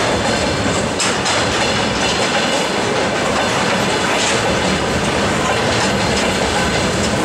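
Freight train of rail tank cars rolling past at speed: a loud, steady rumble of steel wheels on the rails, with the clatter of wheels over the rail joints.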